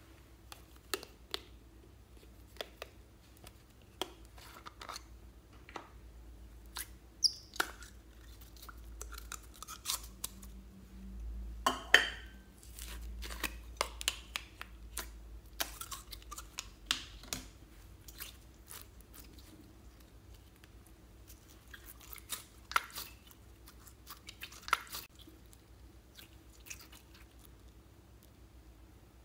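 Hands handling plastic tubs of store-bought slime, opening one, and working sticky slime: scattered clicks, crackles and sticky pops, the loudest a sharp snap about twelve seconds in.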